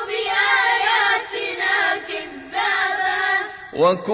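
Children's voices chanting a Quran verse together in melodic murottal style, with a short rising vocal slide just before the end.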